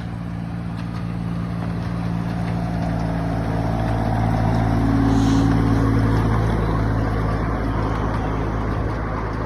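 Engine of a train running in a park, passing by: its steady low drone grows louder to a peak about halfway through, then fades.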